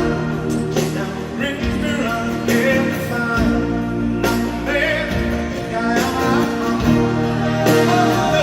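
Background music: a song with singing over guitar and steady held chords.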